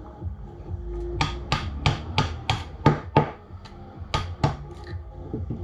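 A run of sharp knocks, about three a second, from a hand tool tapping on an airsoft rifle's lower receiver during disassembly. It starts about a second in, with a short pause partway through.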